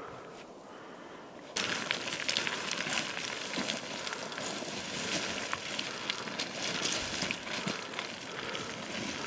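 Footsteps crunching down loose scree, a dense clatter of small stones shifting and clicking under boots, starting suddenly about a second and a half in.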